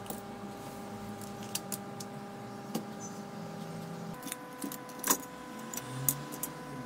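Light metallic clicks and clinks from handling a laptop's heat sink and fan assembly and small tools, scattered and irregular, loudest about five seconds in. A steady electrical hum runs underneath.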